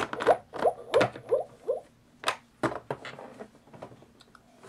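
Quick run of about eight short clicks, most with a brief pitched plink, over the first three seconds, then a few fainter ticks, from the plastic Fisher-Price Little People Zoo Talkers playset and its animal figures.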